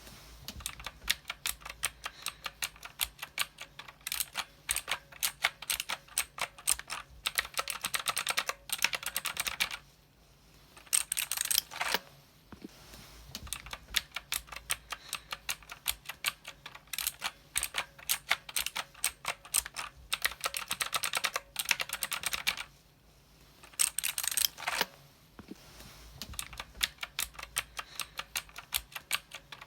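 Fast typing on a mechanical keyboard: a dense run of key clicks that stops briefly twice, each time picking up again with a quick, louder flurry of keystrokes.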